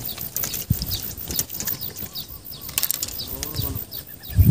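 A freshly landed tilapia flapping and thrashing on wet mud and against a gloved hand, making irregular slaps and flutters. Faint bird chirps sound behind it.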